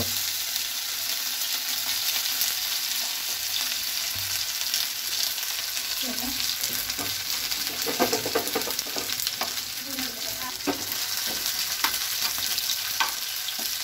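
Ginger, garlic and curry leaves sizzling and crackling in hot oil in a pan, a steady spitting hiss, with a few sharper clicks and stirring sounds around the middle.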